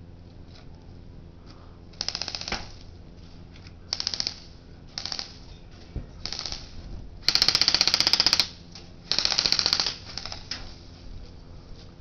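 Airsoft rifles firing a string of short full-auto bursts, about seven in all, each a fast even rattle of shots; the longest and loudest burst lasts just over a second a bit past the middle.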